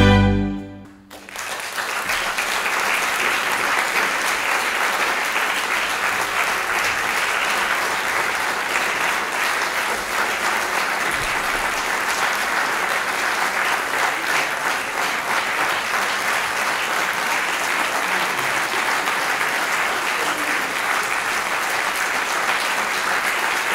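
The chamber orchestra's closing chord of the symphony stops just under a second in. After a brief pause, the audience breaks into steady applause.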